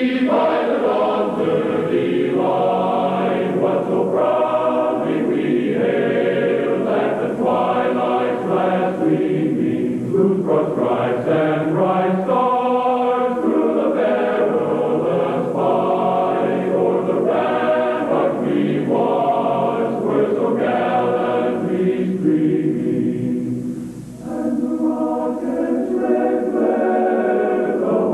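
Choral music: a choir singing in phrases, with a brief dip in loudness about three-quarters of the way through.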